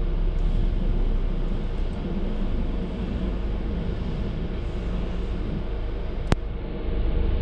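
Car engine idling, heard from inside the cabin as a steady low rumble, with a single sharp click about six seconds in.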